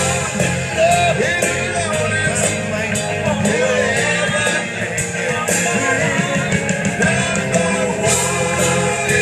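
Live rock band playing through an outdoor PA, heard from the audience: drums and guitar with a sung vocal line over them.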